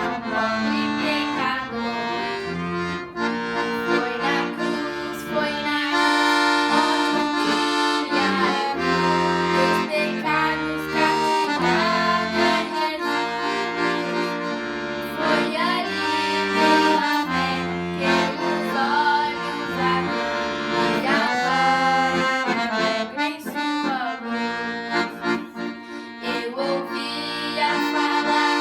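Accordion (sanfona) playing a worship tune: a melody on the right hand over held bass notes and chords that change in steps.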